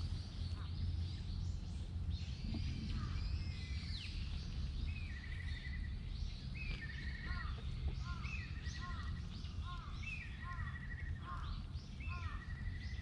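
A songbird repeating the same short phrase about every second and a half: a quick rising note, then a fast trill, with fainter chirps between. A steady low rumble runs underneath.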